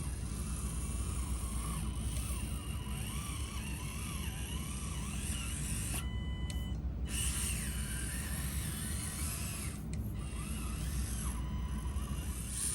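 Axial SCX30 Bronco micro RC crawler's small electric motor and gearbox whining, the pitch rising and falling with the throttle. It cuts out briefly about six seconds in and again around ten seconds, over a steady low rumble.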